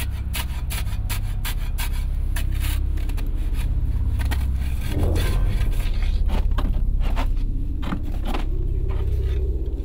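Repeated scraping and chopping strikes of a hand tool hacking ice and packed snow loose in front of a barn door, over a steady low rumble.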